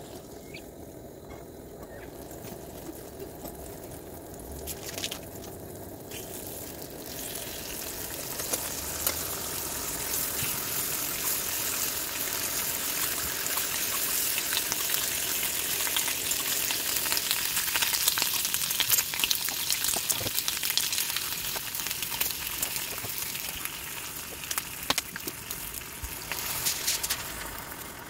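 Ham slices sizzling in a hot cast-iron skillet on a camp stove. The sizzle grows louder several seconds in and holds steady, with scattered clicks of metal tongs against the pan.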